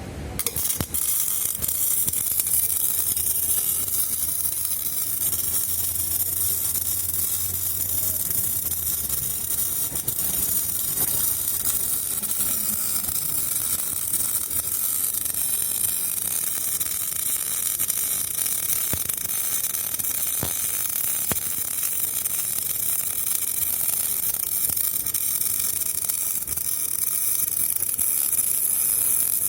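MIG welding arc burning steadily while a pipe is welded to a flange. It strikes right at the start, sputters briefly in the first second, then settles into an even run.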